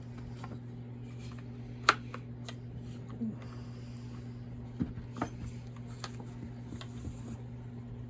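Scattered light clicks and scrapes of hand tools and plastic and metal chainsaw parts being handled during a bench teardown, with one sharp click about two seconds in, over a steady low hum.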